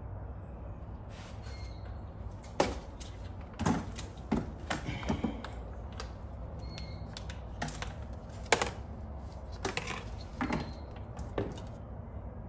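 Scattered sharp clicks and knocks of tools and metal hardware being handled, about a dozen at uneven intervals, over a steady low hum.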